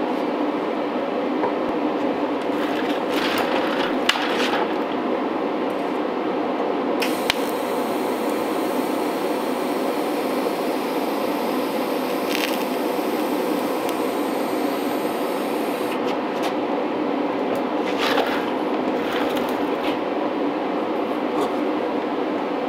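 TIG arc from an Eastwood TIG 200 welder brazing a steel patch onto a brass radiator tank with silicon bronze filler rod: a hiss that starts about seven seconds in and stops about nine seconds later. A steady hum runs underneath, with a few handling knocks before and after.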